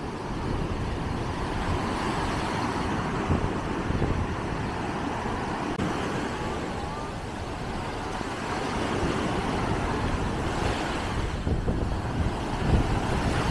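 Surf breaking and washing up on a sandy beach: a steady rushing noise that swells and eases.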